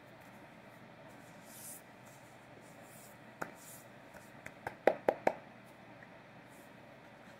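Hands brushing and rubbing against each other, with a quick run of about five light taps of hand on hand around the middle.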